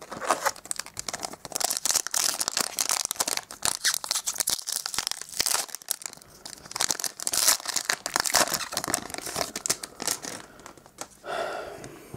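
A trading-card booster pack's shiny foil wrapper being torn open and crinkled by hand, a long run of dense crackling that eases off near the end.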